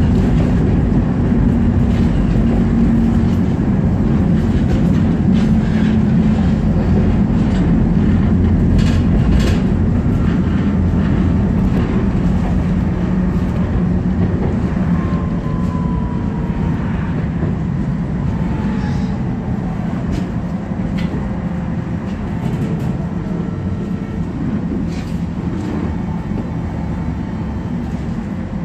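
Tatra T4D tram running, heard from inside the car: a steady low rumble of wheels on the rails with scattered clicks, and a whine that falls slowly in pitch about halfway through.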